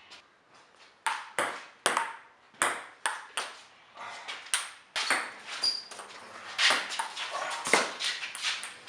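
Table tennis rally: a celluloid ball clicking sharply off paddles and the table, starting about a second in, at first a stroke every half second or so and then in quicker, closer-spaced hits through the second half.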